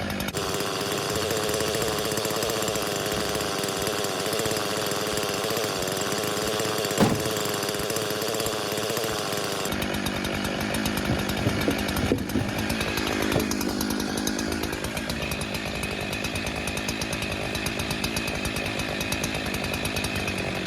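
Gas chainsaw engine running steadily, with a sharp click about seven seconds in. About ten seconds in, its note changes abruptly and it runs on with a rougher, fuller sound.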